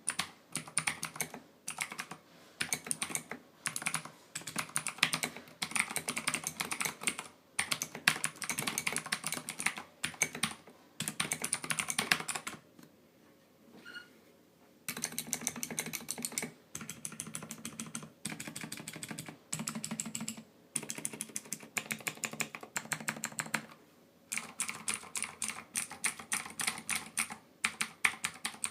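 Typing on a mechanical keyboard fitted with SA-profile PBT keycaps: runs of rapid key clicks and clacks in bursts. The typing pauses briefly about thirteen seconds in.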